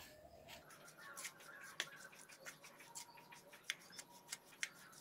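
Spoon stirring and scraping a dry flour-and-breadcrumb coating mix in a bowl: faint, irregular light ticks and scrapes, a few a second.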